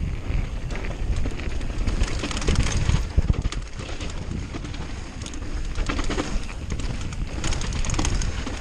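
Downhill mountain bike descending a rocky dirt trail: wind buffeting the microphone, tyres rolling over loose dirt and stones, and the bike rattling with frequent sharp clicks and knocks.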